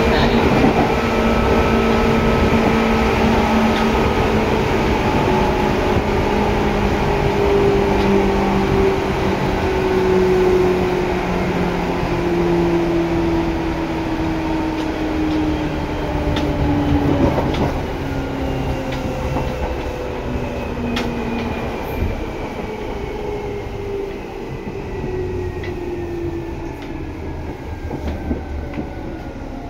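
Seibu 2000-series electric train heard from inside the car: traction motor whine falling slowly in pitch as the train slows, over steady wheel-and-rail rumble with a few sharp clacks. The running noise eases off gradually.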